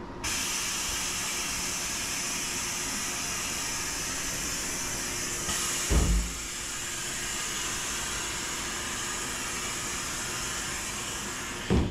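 Compressed air hissing steadily from the coupled ends of two JR West 287 series express sets as they are uncoupled, starting abruptly just after the opening, with two low thumps, one about halfway through and one near the end.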